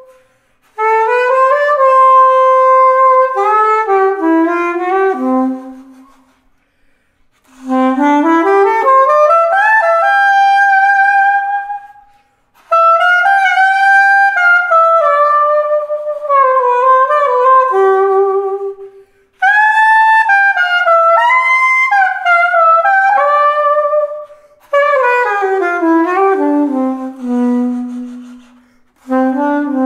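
Coleman CLC-551 curved soprano saxophone in B-flat, black-nickel-plated brass, played solo and unaccompanied. The melody comes in several phrases of a few seconds each, with short pauses between them.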